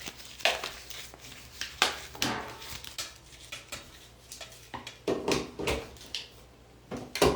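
Irregular knocks and clatters of hard objects being handled against a hard surface, a dozen or so separate hits, with the loudest about half a second in, just before two seconds, around five seconds and near the end. No hair dryer is running yet.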